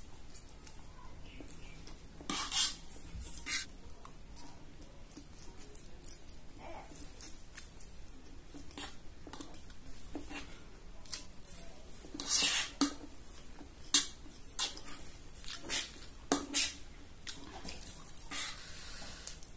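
Close-miked eating: a metal fork clinking and scraping against a tray while gathering fried instant noodles, with slurping and chewing in between. Irregular short clicks, with a few louder ones now and then.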